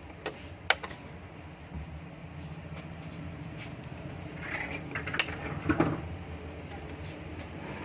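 Exhaust fan motor test-running on freshly replaced 6201 ball bearings: a steady low hum with little bearing noise left. A few sharp clicks come about a second in and again around five to six seconds in.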